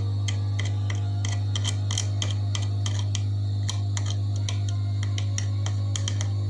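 Hot air rework station blowing on a TV main board to reflow dry solder joints: a steady low hum, with irregular small ticks a few times a second.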